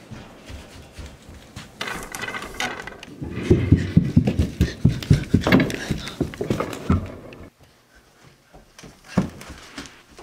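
Quick footsteps thumping down carpeted stairs for a few seconds, followed by a single knock near the end.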